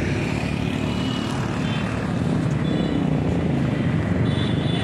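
Steady low rumble of street traffic and vehicle engines.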